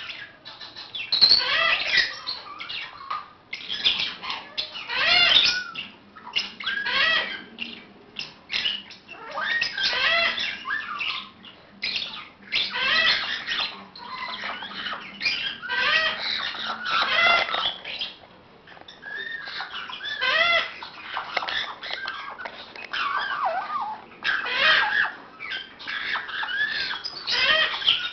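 Baby African grey parrots calling: clusters of short squawky calls that rise and fall in pitch, repeated every second or two.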